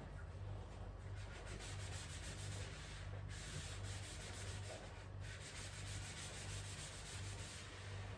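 Sponge scrubbing a fridge surface in quick back-and-forth strokes, a continuous scratchy rubbing that breaks off briefly twice.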